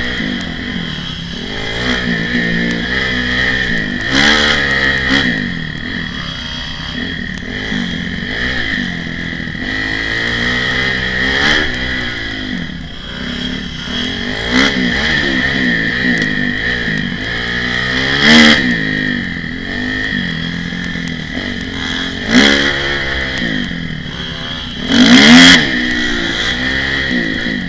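Kawasaki KX250F dirt bike's four-stroke single-cylinder engine, heard from a helmet camera, revving up and dropping back over and over as the throttle opens and closes on a dirt trail. Several brief louder surges stand out, the strongest about two-thirds of the way through and twice near the end.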